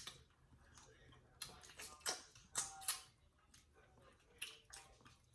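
Eating sounds: a string of short, irregular wet clicks and smacks from a mouth chewing pork neck bones.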